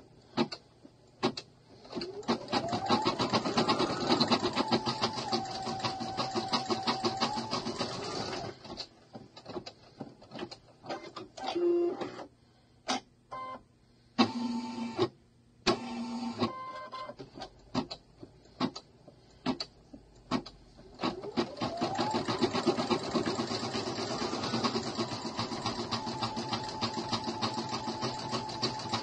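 Computerised embroidery machine stitching through toilet paper and stabiliser. Its motor speeds up to a steady fast stitching hum, stops after several seconds and gives way to scattered clicks and a few short whirs, then speeds up and stitches steadily again about 22 seconds in.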